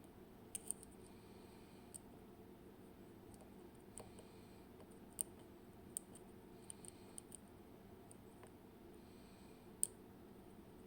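Faint, irregular small metallic clicks as a dimple lock pick works the pins of a WinkHaus KeyTec N-Tra lock cylinder under light turning tension, a few close together about seven seconds in.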